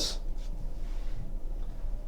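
Faint rustle of trading cards being slid and handled one against another.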